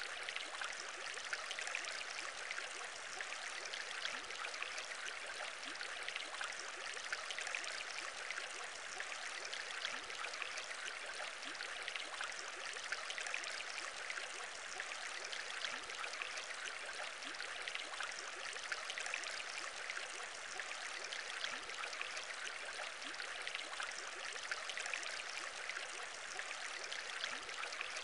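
Aquarium air bubbling: a steady, dense stream of small bubbles, full of tiny rising blips, with no pauses.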